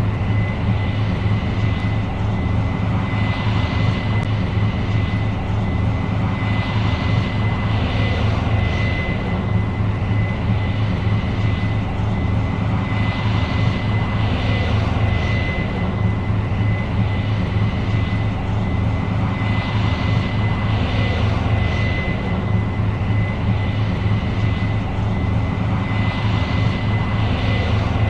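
Case IH 8230 Axial-Flow combine running steadily under load while harvesting soybeans: a deep engine hum with a steady high whine above it and a hiss that swells and fades every few seconds.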